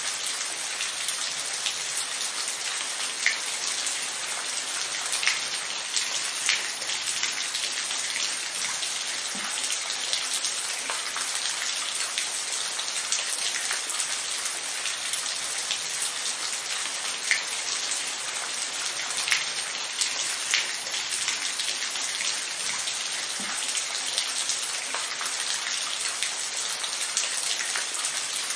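Steady rain falling: an even hiss, with a louder single drop hit standing out every few seconds.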